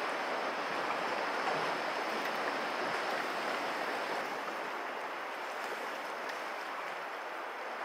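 Sea waves washing against a rocky shore: a steady, even rushing noise with no distinct breaks, easing slightly toward the end.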